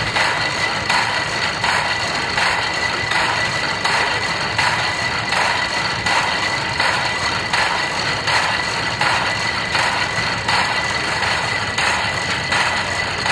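Century-old portable steam engine (Lokomobil) running steadily under belt load, its exhaust beating about three times every two seconds, with a steady high whine alongside.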